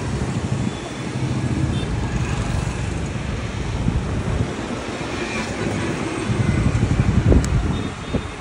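Road traffic noise running steadily, a continuous low rumble that swells a little about seven seconds in.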